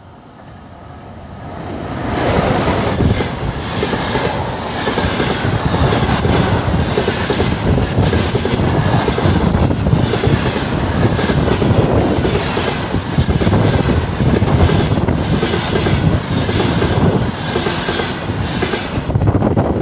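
ChS4 electric locomotive and its passenger coaches passing at speed close by. The sound builds over the first two seconds as the locomotive arrives and goes by. Then comes a long, steady rhythmic clatter of coach wheels over the rail joints, which falls away near the end as the last coach passes.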